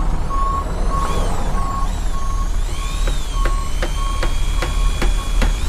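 Construction sound effects: a vehicle's reversing alarm beeps about every 0.6 s over a low engine rumble, with high tones gliding up and down. From about halfway in, a quick row of sharp ticks, about three a second, comes in on top.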